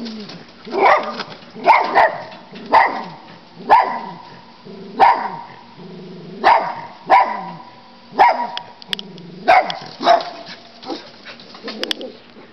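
Dog barking in alarm at a black bear: about a dozen sharp barks at an uneven pace, roughly a second apart, growing weaker near the end.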